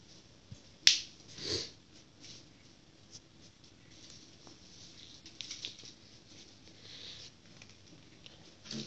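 Siamese kitten pattering and scrabbling about on a laminate floor while batting at a bow toy on a string, with a sharp knock about a second in, a short rustle just after, and scattered small scratchy ticks and rustles after that.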